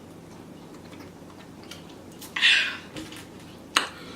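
Mouth and eating sounds close to the microphone: mostly quiet, with a short breathy hiss about two and a half seconds in, then one sharp click about a second later.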